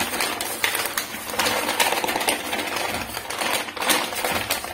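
A plastic packet of dry white cement crinkling and rustling in a hand as it is squeezed and scraped along a marble floor joint, a dense crackling rustle throughout.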